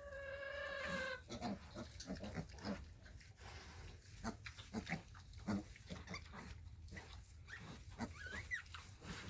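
A piglet's steady high squeal that ends about a second in, then soft, scattered grunts from the pigs. The squeal is most likely from a piglet the sow has just stepped on.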